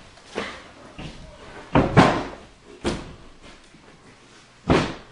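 Several irregular knocks and thumps, the loudest about two seconds in and another strong one near the end.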